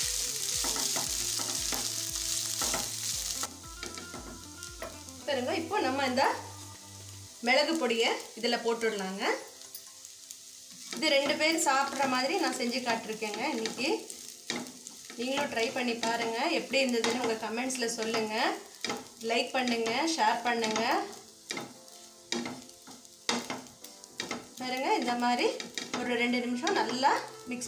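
Spatula stirring and scraping rice around a hot nonstick pan, with a light sizzle of the frying, loudest in the first few seconds. Background music with a bass beat and melody runs under it.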